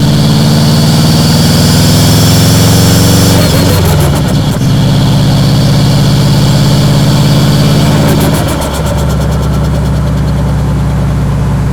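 Subaru Impreza WRX's EJ207 turbocharged flat-four running at a steady speed. The engine note falls in pitch about four seconds in and again about eight and a half seconds in, settling lower and a little quieter after the second drop.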